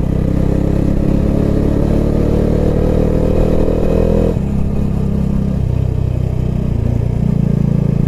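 Motorcycle engine running under way, its note climbing slowly for the first four seconds, then dropping away and picking up again near the end.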